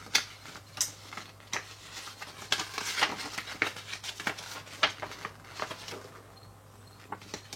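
Paper leaflets and packaging being handled: irregular rustles, crinkles and light taps, dying down near the end.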